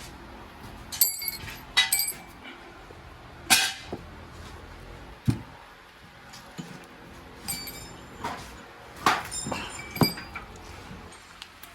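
Metal clinks and knocks, several separate strikes with a short ringing, from steel tools and engine parts being handled and set down during an engine rebuild.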